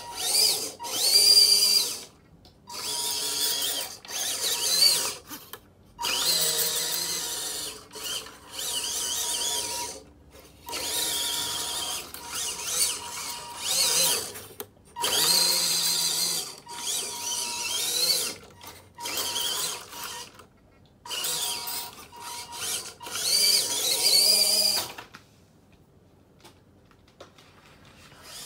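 Electric drive motor and gears of a 1/16 scale RC van on a WPL chassis whining in repeated runs of one to three seconds, the pitch rising and falling with its speed as it drives back and forth. It stops a few seconds before the end.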